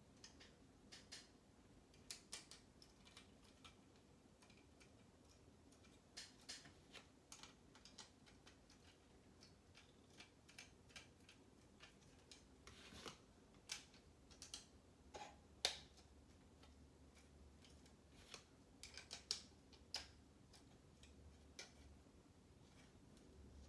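Plastic Lego bricks and plates clicking against each other and snapping into place as they are handled and pressed together: faint scattered clicks, with a few sharper snaps in the second half.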